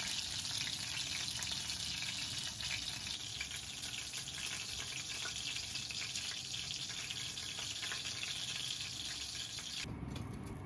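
Hot oil sizzling and crackling steadily as breaded white fish deep-fries in a pan; the oil is running hot and lively. The sizzle cuts off suddenly near the end.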